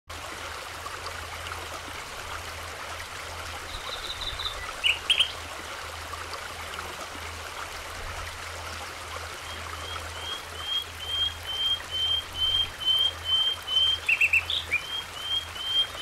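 Birds calling over a steady background hiss. A few brief high calls come about four to five seconds in. From about ten seconds in, a bird repeats one short chirp about twice a second, with a few louder calls over it near the end.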